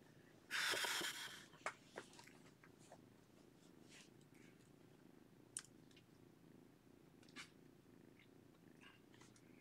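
Domestic cat purring steadily. About half a second in there is a brief, louder burst of noise, and a few small clicks are scattered through the rest.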